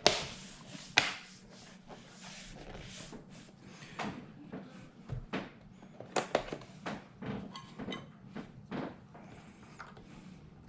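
Irregular plastic clicks and knocks as a computer's plastic cover is pressed into place around its edge, the snap-fit clips catching. Two sharp snaps near the start, then a scatter of lighter clicks.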